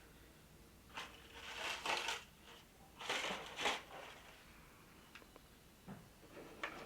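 Packaging being handled: two bursts of rustling and crinkling, then a few light clicks near the end.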